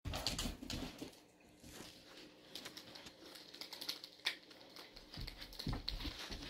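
Dogs' toenails clicking irregularly on a hardwood floor as they shift about, with the sharpest click about four seconds in and a few dull low thumps in the last second or so.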